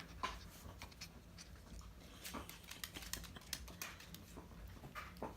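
Faint scuffling of puppies at play: many light clicks and pattering of paws and claws on the floor, with a few short puppy sounds.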